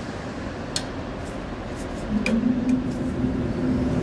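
A few light metallic clicks from an adjustable spanner working the pipe fittings on a train's pneumatic brake valve, over steady background noise. About halfway through, a low steady hum from unseen machinery comes in and becomes the loudest sound.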